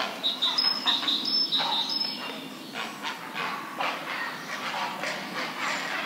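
Grey herons calling at the nest, a run of harsh, rasping croaks that come irregularly, several a second at times. A small bird's thin high notes sound over them in the first two seconds.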